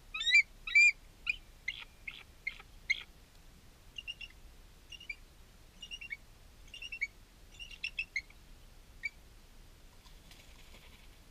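Bird calling: a series of short, high chirping notes, the first two loud, then a quicker scatter of smaller calls that stops about two seconds before the end. A faint hiss follows near the end.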